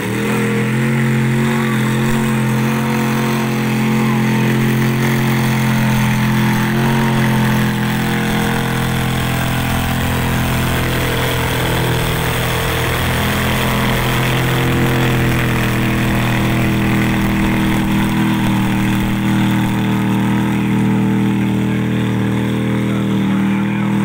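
Vintage tractor engine running hard under full load as it drags a weight-transfer sled. The deep note holds mostly steady with a few small dips in pitch.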